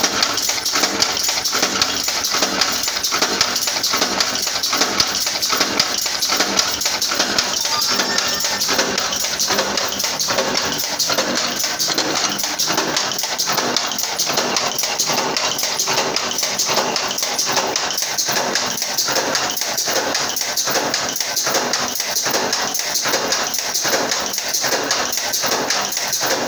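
Power press running a progressive die, stamping steel strip in a fast, steady run of repeated strokes.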